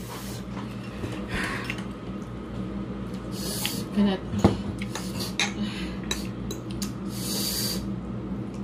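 Utensils clicking against a bowl while eating instant noodles, loudest in two sharp knocks about four seconds in, with two short hissing breaths.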